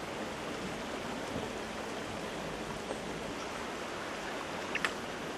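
Steady rush of flowing river water, with a faint click or two near the end.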